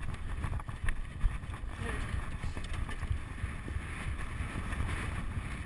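Wind rumbling and buffeting on a rider's helmet-camera microphone as the horse canters across open grass.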